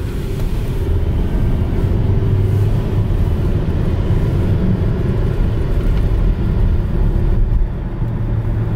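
Car engine and road noise heard from inside the cabin as the car accelerates from about 30 to 40 mph, the engine pulling near 3,000 rpm. Near the end the automatic transmission shifts up, and the revs and the noise drop briefly.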